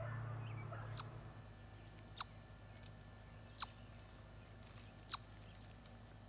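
Eastern chipmunk giving four sharp, high chip calls, each a quick falling note, spaced about a second and a half apart.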